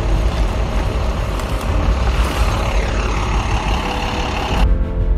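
A school bus engine running with a loud, steady low rumble. Music comes in near the end.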